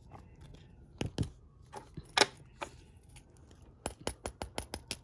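Sharp clicking and crackling of a 3D-printed plastic model being handled in the fingers. A few separate clicks come first, then about four seconds in a fast run of clicks at about seven a second.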